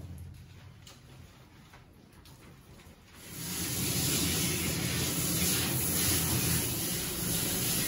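Handheld shower sprayer switched on about three seconds in, spraying a steady hiss of water onto a dog's lathered coat in a stainless steel grooming tub.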